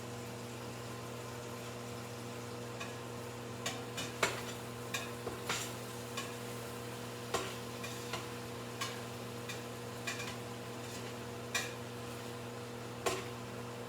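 Beef cubes browning in a pot: a low sizzle under a steady electrical hum, with a dozen or so irregular clicks and knocks as a utensil stirs and turns the meat against the pot, starting about four seconds in.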